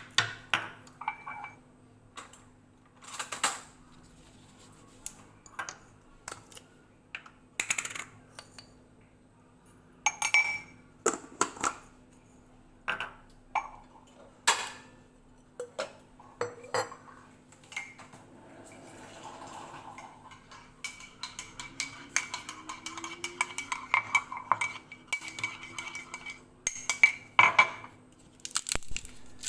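Dishes and cutlery clinking: separate sharp knocks and clinks every second or two, becoming a busier run of clatter in the last third.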